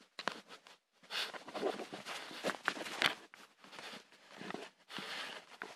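Handling noise: a hand brushing and bumping against the recording device, an uneven run of rustles and knocks.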